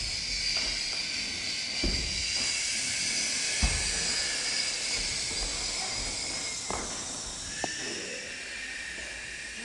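A steady hiss that wavers slowly in pitch, with a few soft thumps and knocks scattered through it.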